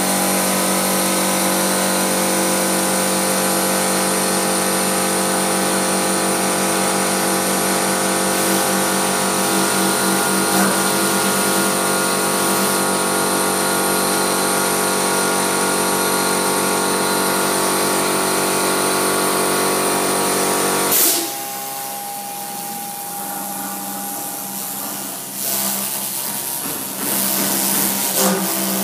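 CNC router spindle running with a steady high whine while its bit cuts a foam block. About two-thirds of the way through, the sound drops suddenly to a lower, different level, with louder hissing passages near the end.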